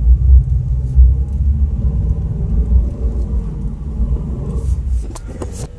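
Subaru Baja's flat-four engine working hard with a heavy low rumble as the car pushes up a driveway through heavy wet snow, the pitch wavering, then easing off about five seconds in. A few sharp clicks follow near the end.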